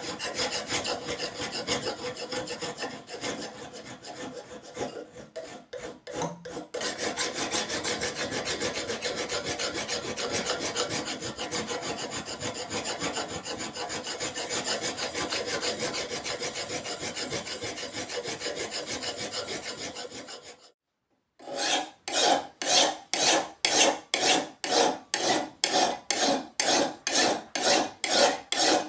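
Hand file rasping back and forth on a knife blank, first in quick continuous strokes. After a brief break about two-thirds through come slower, evenly spaced strokes, about two a second.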